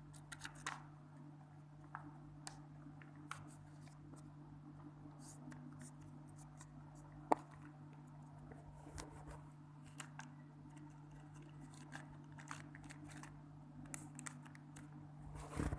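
Faint scattered clicks and crinkles of a small zip-lock plastic bag being handled and pressed shut, with one sharper click about seven seconds in. A steady low hum runs underneath.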